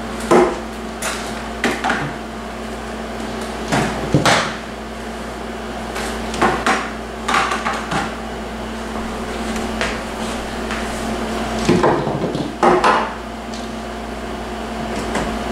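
Handling noises: a dozen or so short knocks and clicks as a cordless phone's charging cradle and its power cord are set down and arranged on a wooden cabinet top, over a steady low hum.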